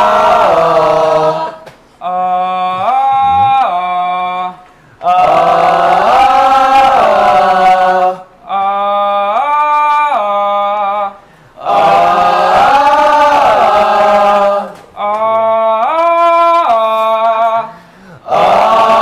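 Vocal warm-up sung as call and response. One male voice sings a short phrase that rises and falls back on a vowel, and a group of voices sings it back. Three such exchanges follow one another about every three seconds, with brief pauses between phrases.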